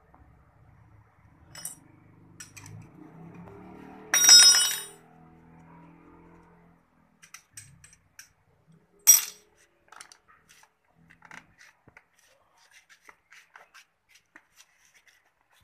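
Metal parts clinking as a Honda Spacy 110 scooter engine's cylinder head is taken apart by hand: one loud ringing clang about four seconds in, a sharp knock about nine seconds in, and scattered small clicks.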